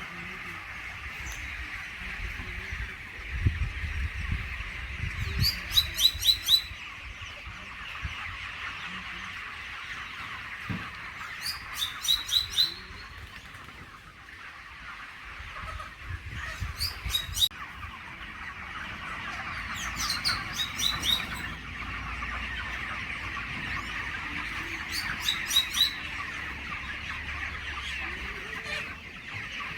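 Small bird singing a quick, high twittering phrase about every four to five seconds over a steady background of farmyard bird chatter.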